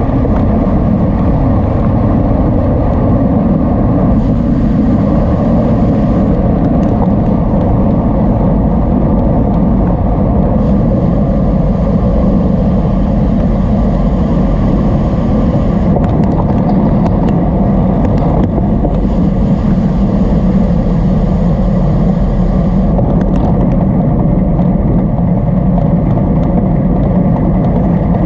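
Steady, loud rumble of wind buffeting the microphone as the bicycle race goes on, mixed with road noise.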